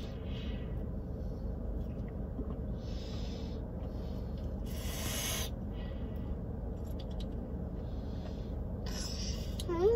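A child breathing noisily through her nose as she drinks from a can, a few short hissing breaths with the loudest about five seconds in, over a steady low car-cabin hum. A high wavering cry starts just at the end.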